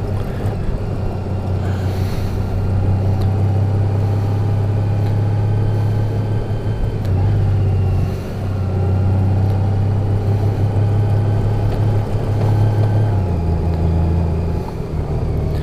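2018 Honda Gold Wing's flat-six engine running at low road speed on a dirt road, a steady low drone with tyre and road noise; the engine note shifts slightly near the end.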